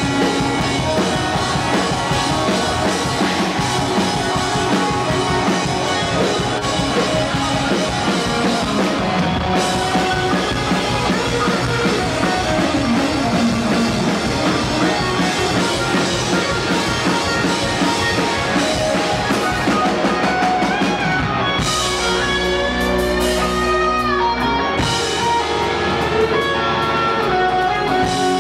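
Live rock band playing loud, with electric guitars, bass guitar and drum kit. About 21 seconds in the drums drop away, leaving held guitar notes, some bent in pitch, ringing out.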